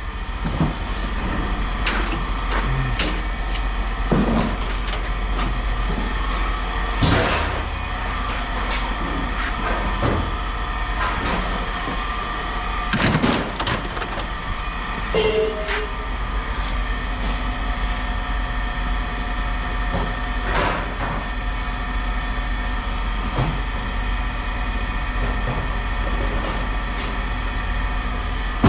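Steady mechanical drone with a low hum, broken by scattered clanks and knocks of scrap metal being handled.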